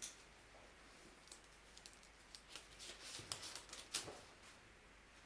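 Bible pages being leafed through close to a microphone: faint, quick paper flicks and crackles, thickest from about a second in until near the end.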